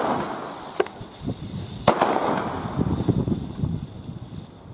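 Firecrackers (Böller) going off: a smaller bang about a second in and a loud bang about two seconds in, each followed by a short echo.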